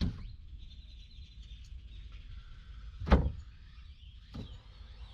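One sharp knock about three seconds in, with fainter knocks at the start and about a second later: hard parts being handled during disassembly.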